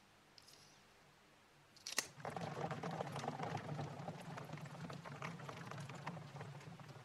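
A sharp snip or pop as the orbeez-packed balloon is opened at the top, then a rush of wet crackling and pattering as the water beads spill out through the hole into the glass dish. It slowly tapers off.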